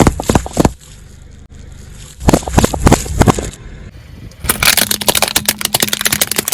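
Objects crunching and cracking under a car tyre. There are two short bursts of sharp cracks, the second about two seconds in. From about four and a half seconds in, a long run of dense, rapid crackling follows.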